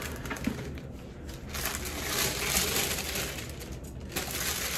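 Tissue paper rustling and crinkling as it is unfolded and pulled back inside a gift box, louder for a couple of seconds in the middle.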